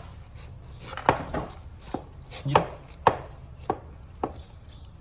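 Sharp, irregular knocks, about six in a few seconds, as a stainless-steel charge pipe is forced into its black plastic fitting, the parts pressed and rapped against a concrete floor.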